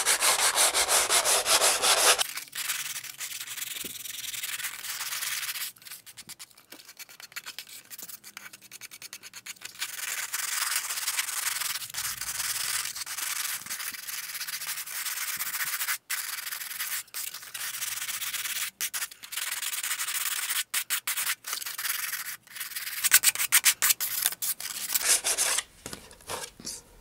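A model rocket fairing's edge rubbed rapidly back and forth on the sandpaper of a long hand-held sanding tee, knocking off the high spots. The sanding is loudest for the first two seconds and again about twenty-three seconds in, softer and more broken in between.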